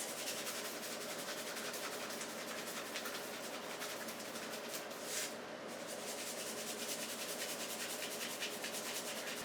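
Salt being dispensed heavily over tomatoes: a steady, fast, even scratchy rasping.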